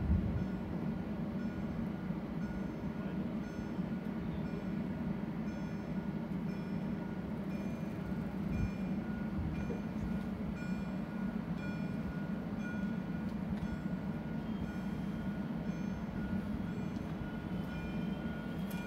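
Electric multiple unit standing at a platform with a steady low hum and a short high electronic beep repeating about once a second. In the last moments a rising whine sets in as it starts to move off.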